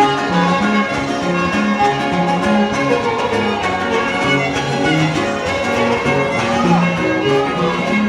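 Huapango (son huasteco) played by a trío huasteco: a lively violin melody over strummed guitars and a bass line that steps between notes about twice a second.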